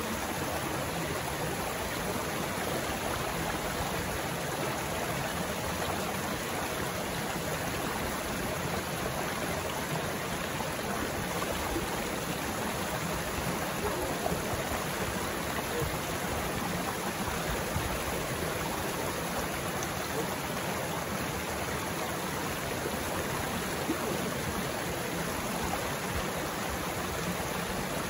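River water running steadily over rocks: a constant, even rush with no breaks.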